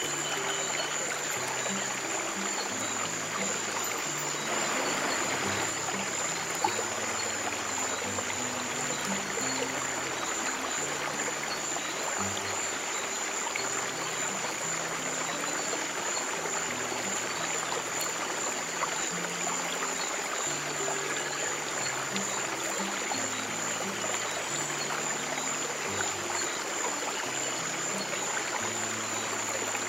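Flowing stream water, an even rushing trickle, over slow, soft low piano notes that change about once a second. A thin, steady high tone runs alongside.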